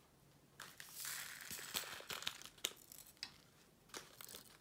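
Small plastic bags of diamond painting drills crinkling and rustling as they are handled, with a few light clicks.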